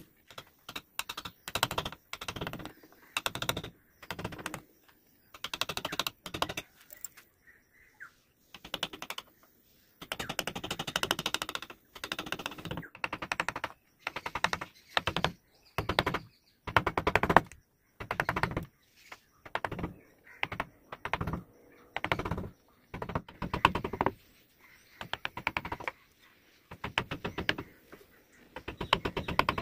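Steel carving chisel pushed by hand through wood, paring shavings in short crackling strokes with brief pauses between them.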